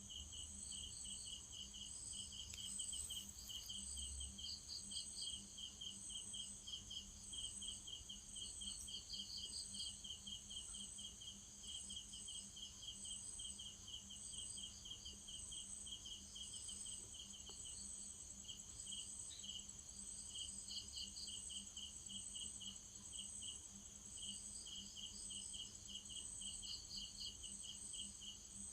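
Insects chirping steadily: a quick, even run of short high chirps, several a second, over a continuous high-pitched trill, with a faint steady hum underneath.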